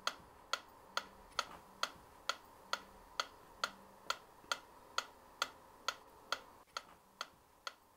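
Wittner Taktell Piccolo clockwork metronome ticking steadily, about two ticks a second.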